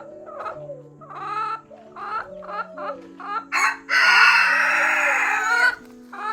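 A chicken clucking in a quick series of short calls, with one long loud call about four seconds in.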